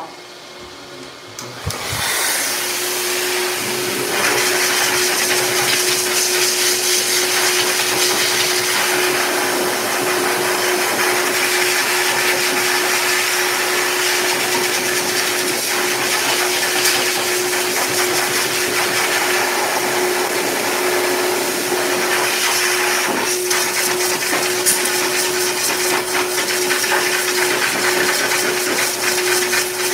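Heavy-duty K9 dog dryer blowing air through a thick coat: quieter for the first two seconds, then it jumps up to a loud, steady rush of air with a steady hum underneath.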